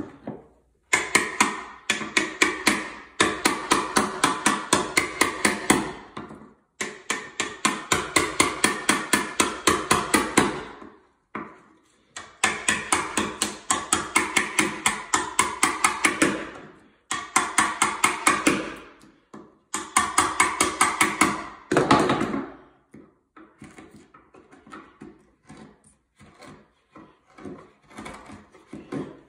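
Hammer rapidly striking a wood chisel, about five blows a second in runs of several seconds with short pauses, chopping a shallow mortise into wood for a fastener plate. Toward the end the blows turn into lighter, sparser taps.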